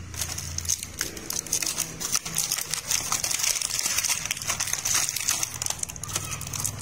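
Thin clear plastic blister tray crinkling and clicking as small plastic toy traffic cones are pried out of it by hand, with many small irregular clicks.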